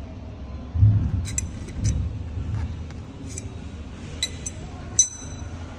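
Light metal clinks with short bright ringing, several times, from tool work on an e-bike's mechanical disc brake and its mounting bracket, with a couple of dull handling knocks, the loudest about a second in.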